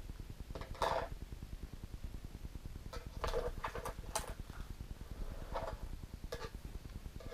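Hands handling knitting: a few short rustles and light clicks as the wool cardigan is shifted and a crochet hook and metal circular knitting needle are set down and picked up, with a cluster of them about three to four seconds in, over a steady low background noise.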